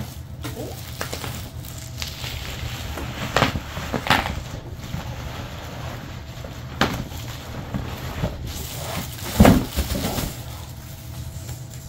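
Plastic bubble wrap rustling and crinkling as long sheets are pulled out of a cardboard box, with a few sharper crackles, the loudest about nine and a half seconds in.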